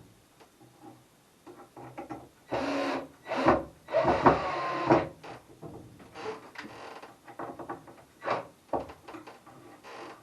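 Handling sounds on a wooden cupboard: irregular knocks, scrapes and short bursts. The loudest cluster comes from about two and a half to five seconds in, as a small turn-latch is fitted with a screw.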